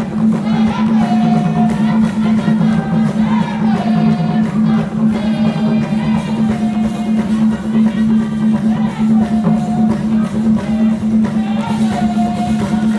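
Live music for a Vimbuza dance: voices singing a short phrase that comes round every couple of seconds, over a loud steady low note and drums.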